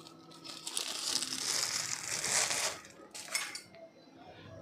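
Thin plastic bag crinkling as wheat flour is shaken out of it onto a plastic plate, for about two seconds, then a brief second crinkle.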